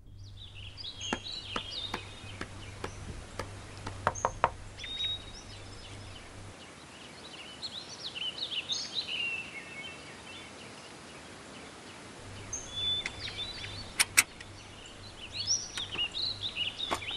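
Small birds chirping, with a few sharp knocks scattered through, the clearest a quick pair of raps on a door near the end. A faint low hum runs underneath for part of the time.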